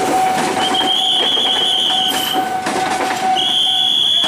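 Passenger train coaches rolling through a level crossing, wheels clattering over the rail joints, with a steady thin squeal that stops as the last coach goes by near the end. A shrill, wavering high tone sounds twice over it.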